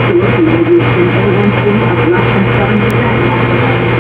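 Loud music over a steady low hum and dense hiss.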